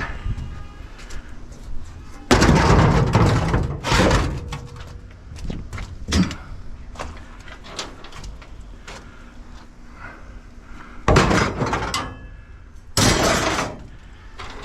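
Pieces of scrap metal being thrown and stacked onto a load: several loud crashes and clanks, the longest about two seconds in.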